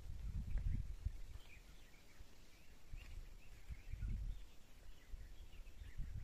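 Quiet outdoor ambience: faint, scattered bird chirps over an irregular low rumble.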